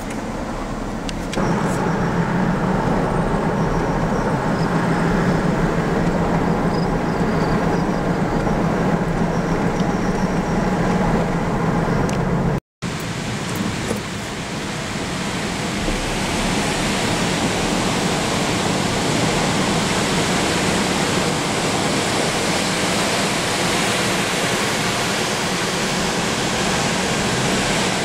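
Steady road and engine noise of a moving car heard from inside the cab. About a dozen seconds in, it cuts off for an instant and comes back as a brighter, hissier steady rush.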